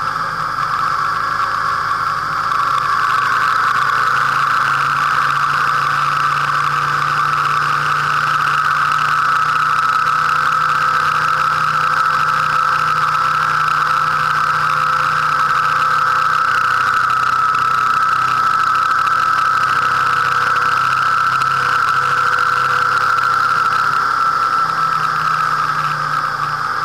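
Motorcycle engine running steadily while riding, a low engine note under a steady whine, the engine note shifting slightly a few times.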